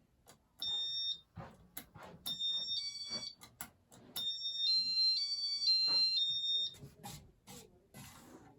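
A Casablanca ceiling fan's electronic control running its demo mode: a run of high electronic beeps stepping between a few pitches like a short tune, with button clicks before and after.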